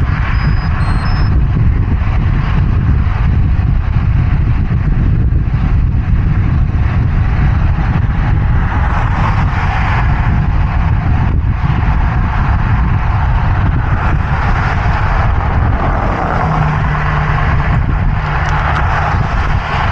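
Wind rushing over a bicycle rider's action-camera microphone, over the hiss of tyres and traffic on a busy highway. Passing vehicles swell louder about halfway through and again near the end, one with a steady low engine hum.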